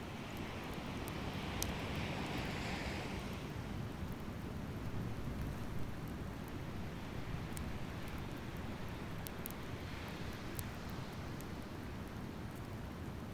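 Waves washing in steadily on a beach, with one wave swelling a little louder about two seconds in and a few faint sharp ticks scattered through it.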